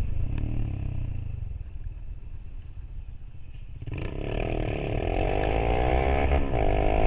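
Honda Monkey motorcycle engine under steady wind rumble. It runs softly for the first few seconds, then, after a sudden change about four seconds in, pulls with its pitch rising steadily, dips briefly about six seconds in, and climbs again.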